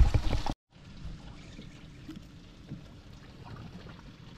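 Water lapping and trickling against the hull of a drifting fishing boat, a steady low wash with a few faint ticks. A loud, rough burst of noise in the first half-second cuts off suddenly.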